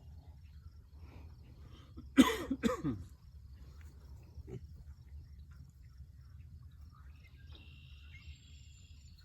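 A pig giving two short, loud squealing grunts, falling in pitch, about two seconds in. Near the end comes a faint insect chirring.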